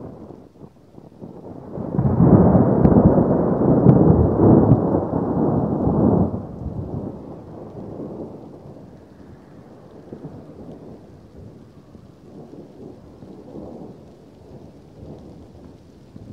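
A long roll of thunder. It swells about two seconds in, stays loud for some four seconds, then dies away into weaker low rumbles.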